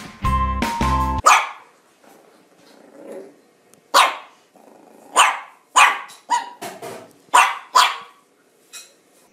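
Puppy barking in short, sharp yaps, about eight of them, most packed into the second half. Music plays briefly at the start and stops about a second in.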